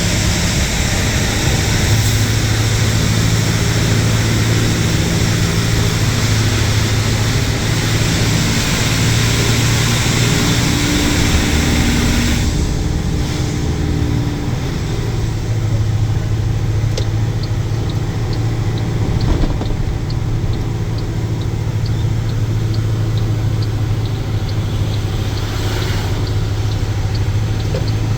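Car driving on a wet road in the rain: a steady engine hum under a hiss of rain and tyre spray, with the hiss dropping away sharply about halfway through. In the second half a faint, regular ticking repeats over roughly ten seconds.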